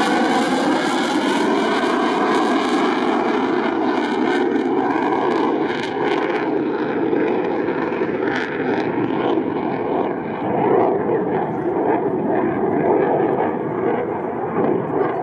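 Saab SK 35 Draken jet fighter flying past, its engine a loud, steady rushing noise. In the first couple of seconds, sweeping tones fall in pitch as it passes, then the noise settles into an even rush that slowly fades.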